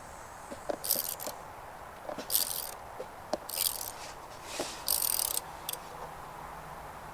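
Socket wrench turning a spark plug loose from a small engine, clicking and rattling metallically in short strokes about once a second.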